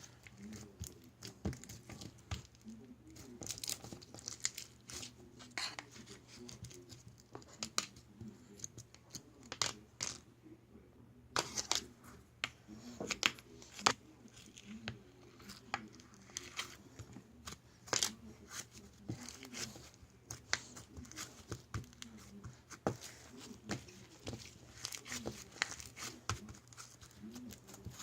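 Blue slime squished and stretched by hand, giving irregular crackling clicks and pops.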